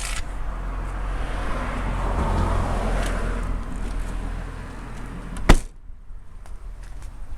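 A car passes on the road, its tyre and engine noise swelling and fading. Then the car's boot lid slams shut with one sharp bang about three quarters of the way through.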